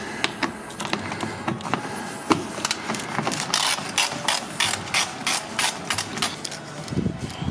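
Hand socket ratchet clicking as it backs out the under-panel bolts, with irregular clicks at first, then a run of about five clicks a second in the middle.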